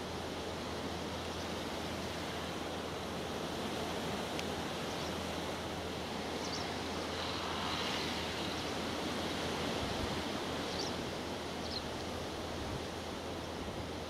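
Deutz-Fahr Agrotron 180.7 tractor's six-cylinder diesel running steadily under load while it pulls a power harrow and seed drill, a constant low engine hum under an even hiss.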